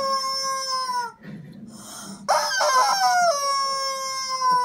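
Rubber chicken squeeze toy squawking twice: two long, loud, squealing screams, each sliding slowly down in pitch. The first ends about a second in; the second starts a little past two seconds in.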